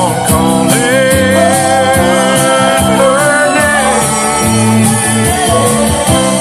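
Country music with a steady beat, a bass line and a melodic lead line.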